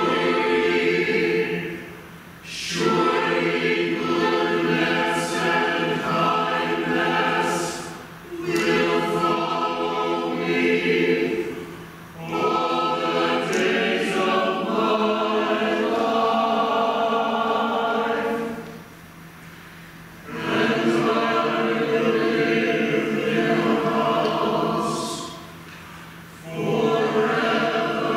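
Mixed church choir singing a cappella in slow, sustained chords, in phrases of a few seconds each with short breaks between them.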